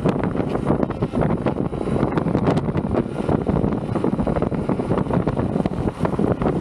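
Tyre of a Leaperkim Patton electric unicycle rolling over snow: a steady, dense rumble, with wind buffeting the microphone and a few sharp ticks about two seconds in.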